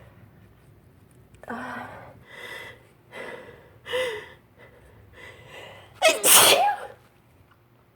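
Allergic sneezing fit: several short breathy bursts, then one loud full sneeze about six seconds in.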